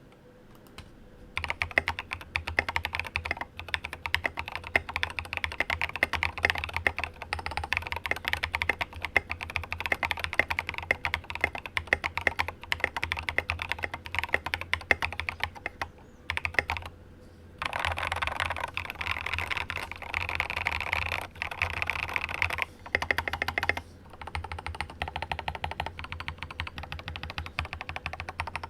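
Typing on a Rama Works KARA mechanical keyboard with lubed Cobalt POM linear switches on a polycarbonate plate and SA-profile doubleshot ABS keycaps. A fast, continuous run of keystrokes with a somewhat thocky tone starts a second or two in, with a short pause a little past halfway.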